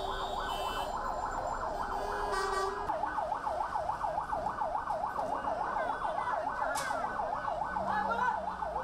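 Vehicle siren sounding in a fast yelp, its pitch sweeping up and down about four to five times a second without a break. One sharp click cuts across it near the end.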